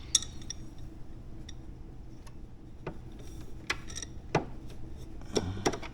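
Scattered light clicks and taps, about nine at irregular intervals, as a speaker and its grill are handled and lined up in a motorcycle lower fairing speaker pod.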